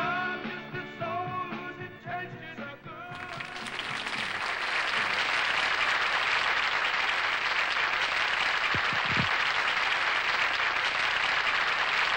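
A rock band plays its last sustained notes, then about three seconds in an audience breaks into steady applause.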